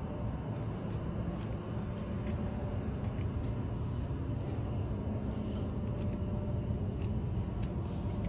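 Skid steer engine running steadily with a low rumble, with scattered light clicks over it.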